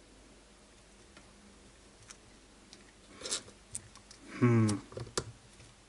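Faint, scattered clicks of small RC car parts being handled in gloved hands. A short wordless vocal sound from the person working comes about three quarters of the way through and is the loudest thing heard.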